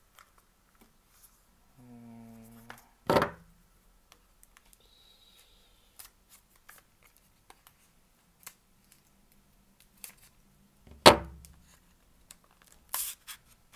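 A table knife slitting open the sealed top of a small paperboard JUUL device box as the box is handled: light scrapes and clicks, with two louder knocks, one about three seconds in and the loudest one near the end.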